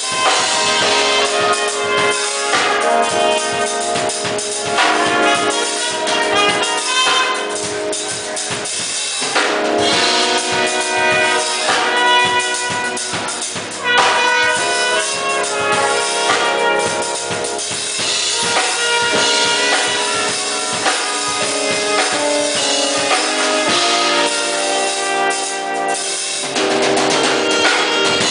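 Instrumental music with a drum kit and brass.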